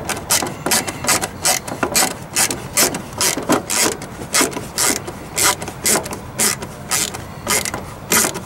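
Ratcheting screwdriver with a T20 Torx bit clicking as it backs out a tail-light mounting screw, in an uneven run of about two or three clicks a second.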